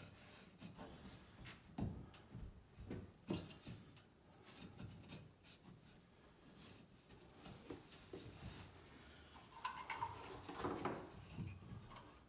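Faint, scattered knocks and rubbing, as of objects being handled, with a busier clatter near the end.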